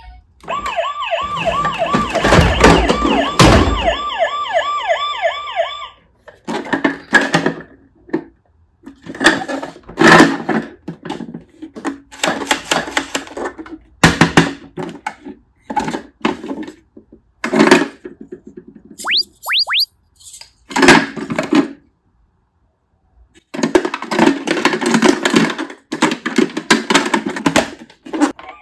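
Toy ambulance's electronic siren sounding a fast rising-and-falling wail for about five seconds. Then comes a long string of plastic clacks, knocks and rattles from the toy being handled and run along. Three quick rising whistles sound about two-thirds of the way through.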